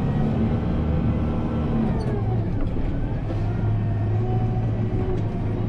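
Kubota M7060 tractor's four-cylinder diesel engine running steadily while pushing snow, its pitch dipping briefly and recovering about two seconds in.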